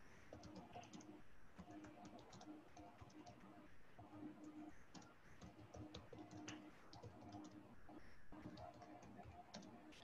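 Faint typing on a computer keyboard: quick, irregular key clicks, with short pauses between bursts.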